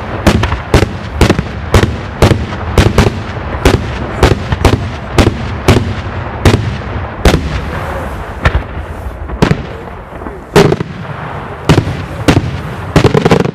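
Daytime fireworks display: a rapid, irregular string of loud detonations, about two bangs a second, with rumbling echoes between them.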